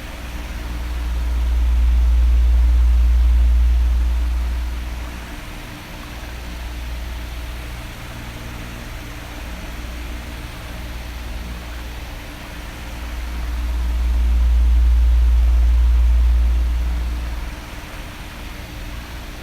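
Oscillating electric fan running with a steady whooshing hiss and a faint hum. Twice, about twelve seconds apart, a deep rumble swells and fades as the fan turns its airflow onto the microphone and away again.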